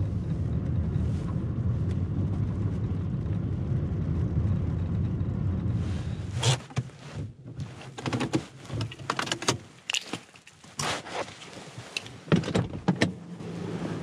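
Car running with a steady low drone of engine and road noise for about six seconds. The drone then drops away, leaving a scattering of sharp clicks and knocks.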